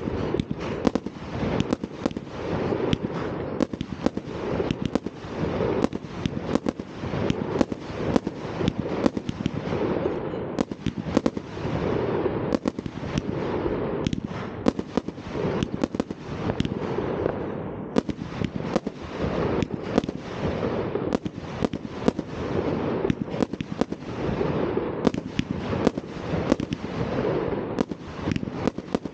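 Fireworks going off in a continuous barrage: many overlapping sharp bangs and crackling firecrackers, with no pause.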